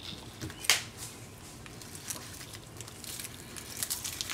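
Metal spoon scraping and prying at a charcoal-roasted onion and its charred, crackly skin on a plate, in small scattered clicks and scrapes, with one sharp click just under a second in.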